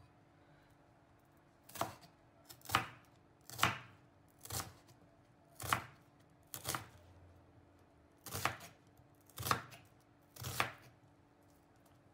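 Chef's knife slicing a red onion on a wooden cutting board: about nine slow cuts, roughly one a second, starting about two seconds in.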